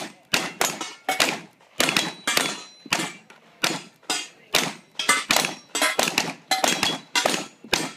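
Rapid gunfire from two cowboy action shooters firing side by side: over twenty sharp shots, about three a second, uneven and sometimes nearly overlapping, each with a short ringing tail.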